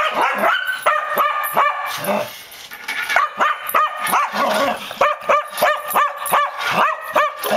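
Cocker spaniel barking in short, high yips, about two a second, with a brief lull about two seconds in. The dog is barking excitedly at a remote-control toy car.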